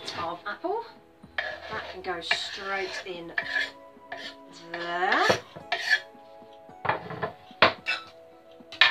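Kitchen knife and wooden chopping board knocking and clattering as apple is diced, then as the diced apple is scraped off the board into a glass bowl, with a sharp knock near the end. Background music with sustained tones plays underneath.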